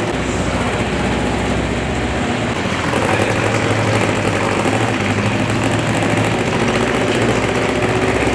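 Boat's motor running steadily with a low hum, its lowest note shifting slightly about two seconds in.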